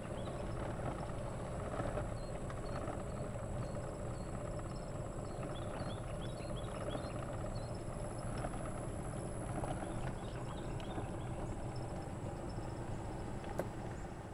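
Golf cart driving along a street: a steady run of motor and tyre noise with a thin, steady high-pitched whine, and small birds chirping for a few seconds in the middle.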